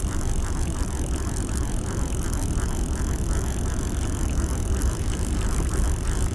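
A conventional catfish reel being cranked, its handle turning steadily to wind in line with rapid, fine mechanical ticking, over a steady low rumble.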